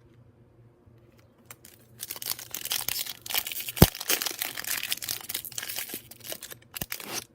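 A foil trading-card pack being torn open and its wrapper crinkled. The crackling starts about two seconds in and lasts about five seconds, with one loud click near the middle.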